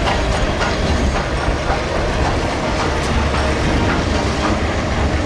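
Train running on the rails: a loud, steady rumble with faint irregular wheel clicks.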